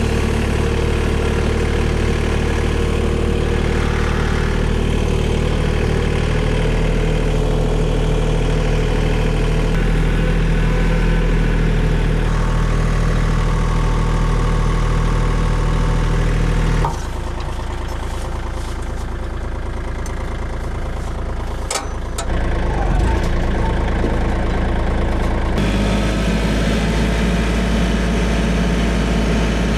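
An engine running steadily at constant speed, its tone changing abruptly about halfway through and again later on. A few sharp clicks come about two-thirds of the way through.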